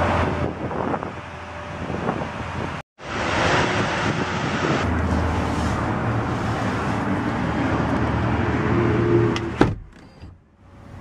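Lamborghini Aventador LP700-4's V12 engine running steadily. The sound drops out for an instant about three seconds in, and a sharp knock near the end is followed by much quieter sound.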